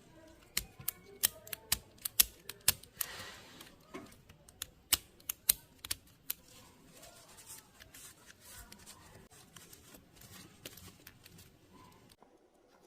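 Irregular sharp clicks and taps of small tools and parts being handled at a workbench. They come thick and loud for the first six seconds, then grow fewer and fainter, with a short hiss about three seconds in.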